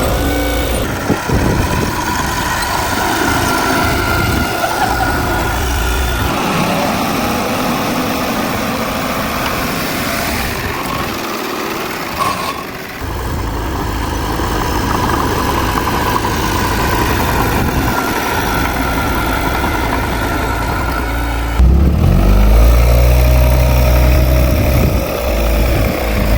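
Heavy diesel engines of earthmoving machinery running, with a steady whine over the engine noise. The sound shifts abruptly about 12 seconds in and again about 22 seconds in, when a louder, deeper engine comes in and its pitch rises slightly.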